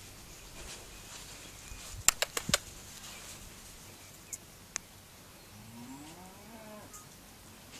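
A lamb bleats once near the end, a rising, wavering call a little over a second long. About two seconds in there is a quick run of four sharp clicks, the loudest sounds, and two more single clicks follow a couple of seconds later.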